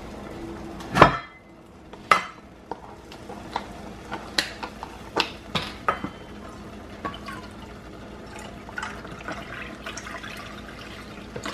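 Kitchen knocks and clinks, the loudest a sharp knock about a second in, then a run of clicks. Near the end, chicken broth is poured from a metal measuring cup into a saucepan of milky filling.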